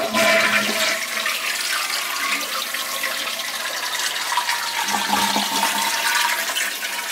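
Toilet flushing: a rush of water that starts abruptly and runs on steadily as the tank empties into the bowl.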